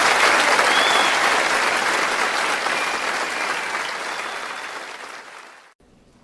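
Audience applauding, the clapping gradually dying away and then cut off abruptly near the end.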